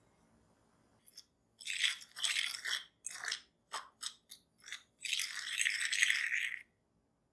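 A metal fork stirring sugar, brown sugar and ground cinnamon in a ceramic bowl. The gritty scraping strokes start about a second and a half in, with several short strokes in the middle and a longer stretch of steady stirring near the end.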